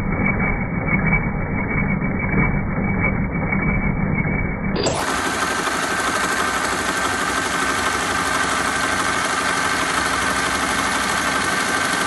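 Bestsew B-3620 15-needle embroidery machine stitching. At first its sound is slowed down, low and muffled. About five seconds in it jumps to normal speed: a steady, fast, even mechanical rhythm of the needle bar running.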